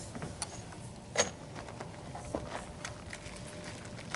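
A few small, sharp clicks and light knocks over a quiet, steady background, the clearest about a second in.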